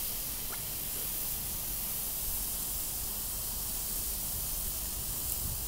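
Steady hiss from an Ooni Koda 16 propane pizza oven turned down low: its gas burner flames and beef patties sizzling on a cast iron griddle plate.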